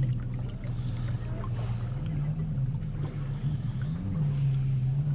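A RIB's outboard motor running at low revs in reverse as the boat backs off its trailer into the water. Its pitch rises briefly about two seconds in and again about four seconds in.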